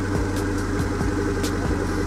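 Car engine idling steadily, with an even low pulse.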